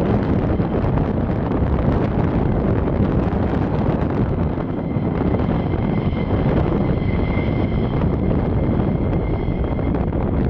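F-15E Strike Eagle's twin jet engines running at taxi power, a steady high turbine whine becoming clearer about halfway through, over a dense rumble from gusty wind on the microphone.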